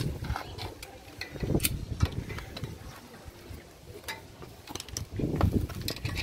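Locking pliers and a screwdriver clicking and scraping against a front brake caliper, in irregular metal clicks with heavier clunks about one and a half and five seconds in.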